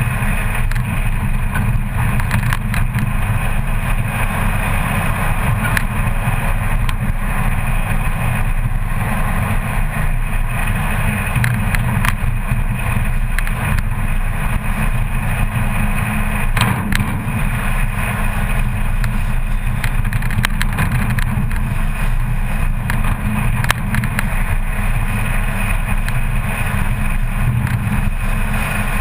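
Car engine running steadily while driving on a sandy dirt track, heard from the bonnet with wind and road noise over it and a few brief knocks from bumps.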